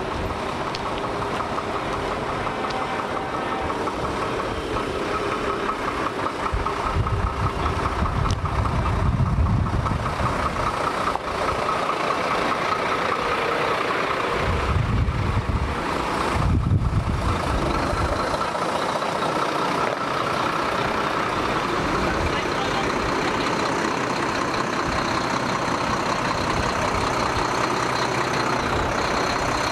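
Heavy lorry's diesel engine running steadily at low revs as the truck moves slowly at close range.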